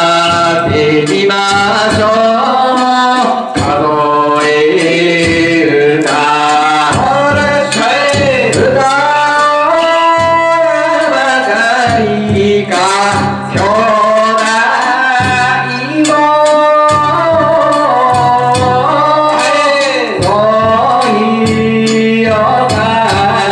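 Male singer performing a danjiri hiki-uta (float-pulling song) in long, wavering drawn-out phrases, with percussion strikes beneath.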